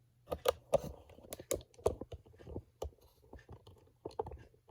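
A quick, irregular run of light clicks and knocks, loudest in the first two seconds and thinning out towards the end.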